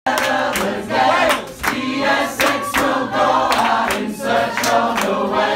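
A group of voices singing a sea shanty together, with a steady beat of hand claps.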